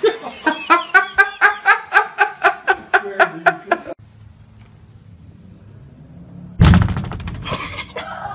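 A person laughing hard in quick, rhythmic bursts of "ha" for about four seconds after a scare; it stops abruptly, leaving a low hum, and later a sudden loud thump is followed by voices.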